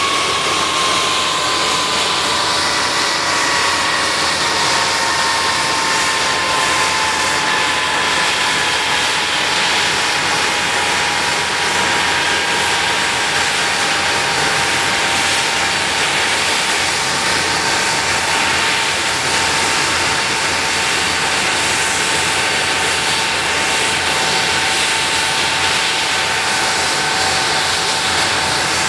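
A Handley Page Victor K.2's four Rolls-Royce Conway turbofan engines running on the ground: a loud, steady jet roar with a high whine. The whine sinks slightly in pitch over the first few seconds, then holds steady.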